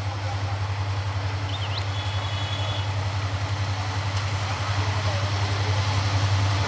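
Diesel locomotive of a passenger express approaching at speed: a steady low engine drone over the rumble of the train, growing gradually louder as it nears.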